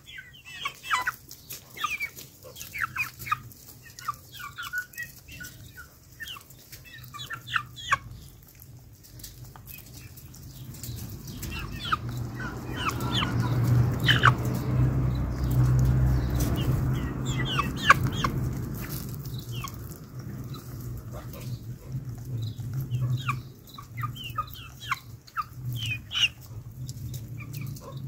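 Domestic chickens clucking in short, scattered calls while pecking at an orange held out by hand. A low rumble swells in the middle and stays on more faintly afterwards.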